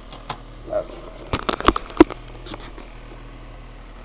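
Handling noise from a handheld camera being swung around: a cluster of sharp clicks and knocks, densest and loudest about halfway through, over a low steady hum.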